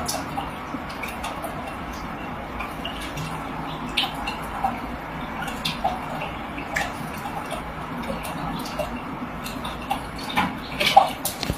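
Water splashing and dripping in an aquarium as a cat paws into the tank and the fish thrash near the surface, over a steady trickle of running water. Scattered short splashes, the biggest a little before the end.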